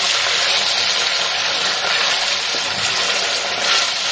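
Pressure-cooked mutton pieces sizzling steadily in hot oil in a kadai, a loud even frying hiss.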